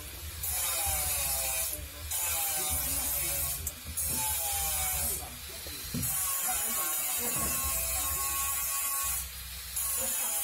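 Electrical insulating tape being pulled off the roll and wound around a spliced wire, giving several drawn-out squeaky peels with short breaks between them.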